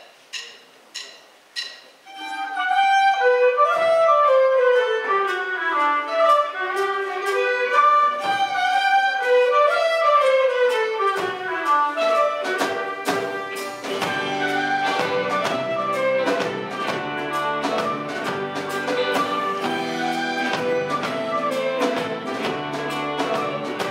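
Folk ensemble music led by fiddle: a few short, ringing struck notes, then from about two seconds in a fast, running melody over other instruments. About fourteen seconds in a low bass part joins and the music grows fuller.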